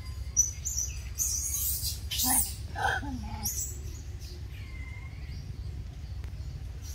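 Long-tailed macaques calling: a quick cluster of short squeals and chirps, some dropping sharply in pitch, between about one and three and a half seconds in, over a steady low rumble.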